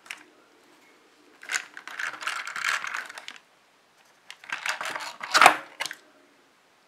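Clear plastic packaging crinkling and crackling in two bursts as a boxed doll figure is handled, after a small click at the start.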